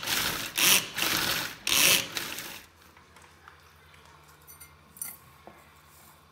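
Hand-operated pull-cord chopper grinding biscuits into crumbs: about four quick pulls, each a loud burst of grinding noise, in the first two and a half seconds. Then it goes quiet, with faint rustles as the crumbs are tipped into a steel mixing bowl.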